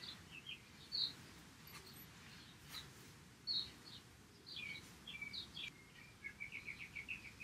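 Faint birdsong: scattered high chirps and short phrases, ending in a quick run of repeated notes over a low background hum.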